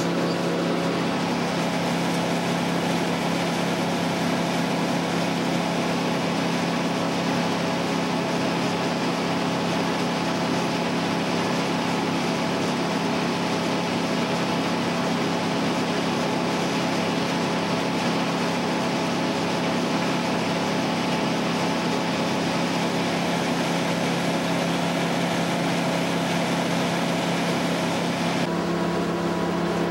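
An engine running steadily at a constant speed, with an even drone and no bursts of load. Its tone shifts slightly near the end.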